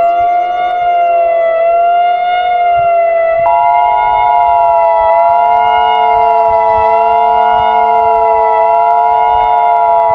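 Civil defense siren held on a steady, slightly wavering tone. About three and a half seconds in, the steady two-tone Emergency Alert System attention signal sounds on top of it and holds on.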